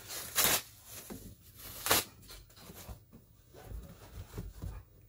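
Crinkling and rustling as a canvas tote bag and its protective wrapping are handled and opened. There are two short, louder crinkles in the first two seconds, then softer rustling with low bumps.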